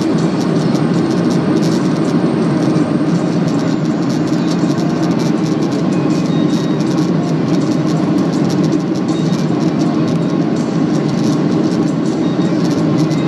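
Steady, loud low rumble with fine rattling, heard inside the passenger cabin of a Boeing 737-800: engine and airframe noise.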